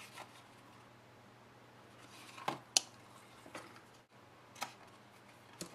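A few short clicks and rustles from paper and trim being handled on a craft desk, spaced out over a faint steady hum.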